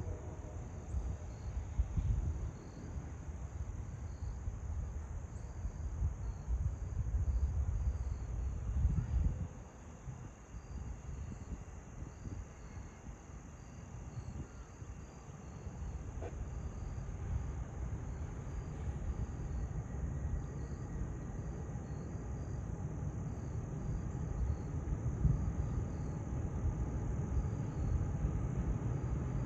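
Steady high-pitched trill of crickets, with a chorus of short chirps repeating at an even pace beneath it, over an uneven low rumble.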